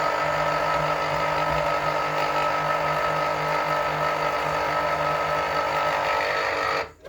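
Electric citrus juicer running steadily as lemon halves are pressed for juice: a loud motor hum that cuts off suddenly near the end.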